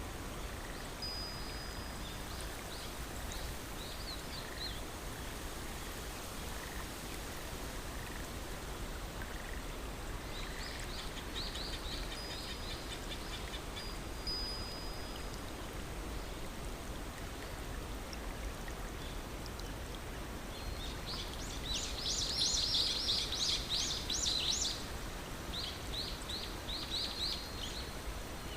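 Steady rushing of flowing water, with bursts of rapid, high chirping trills from birds, the loudest about two-thirds of the way through.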